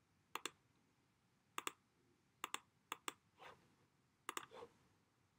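Computer pointer clicks: short, sharp clicks, many in close pairs, coming every second or so while a colour is picked in a drawing program, against near silence.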